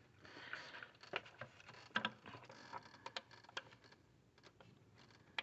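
Faint, scattered light clicks and soft rustling from hands handling and routing a hose line over the engine.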